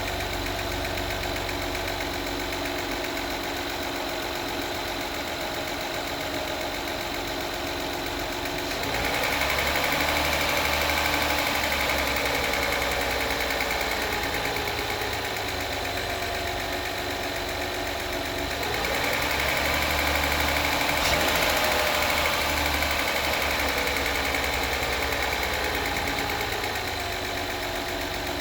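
2016 Acura RDX 3.5-litre V6 idling, then revved twice, about ten seconds apart, each time easing back down to idle. A ticking that follows engine speed runs with it; it appeared after a spark plug change and timing belt job.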